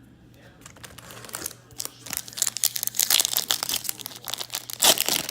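Foil baseball card pack wrapper being torn open and crinkled, faint at first and then crackling loudly from about two seconds in.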